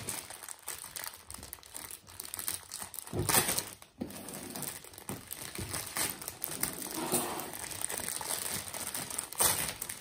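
Clear plastic bag of jigsaw puzzle pieces crinkling as small hands grab and tug at it to open it. The crinkling comes in irregular bursts, louder about three seconds in and again near the end.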